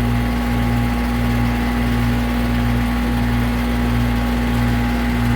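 Outdoor condensing unit of an aging R22 air-conditioning system running: steady hum of the compressor and condenser fan, with a constant low tone. The system is judged more than likely low on refrigerant.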